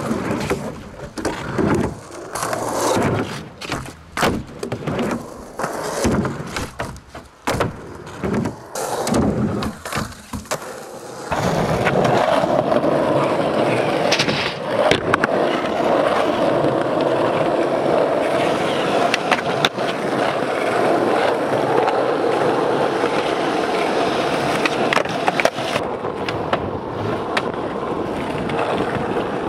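Skateboard wheels rolling over rough, worn asphalt and concrete, with sharp clacks of the board popping and landing. For the first eleven seconds or so it comes in short uneven runs broken by clacks. After that a steady rolling grind runs on, with a few more clacks.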